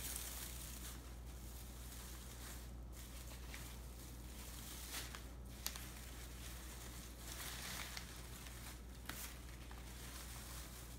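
Shredded newspaper packing and plastic wrapping rustling and crinkling as they are pulled apart by hand, with a few short, sharp crackles.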